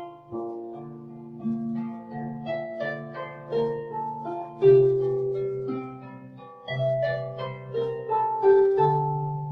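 Harp music: gentle plucked notes and arpeggios ringing and fading over a low repeating bass pattern, played as calm relaxation music.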